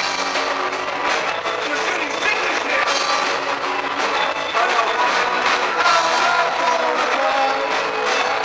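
Live rock band playing: electric bass, electric guitar and drums together, with a steady beat and no break.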